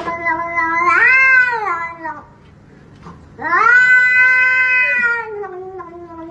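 Grey cat yowling in protest at a hand reaching toward it. It gives two long drawn-out yowls: the first rises in pitch about a second in, and the second starts about three and a half seconds in and sinks lower as it trails off.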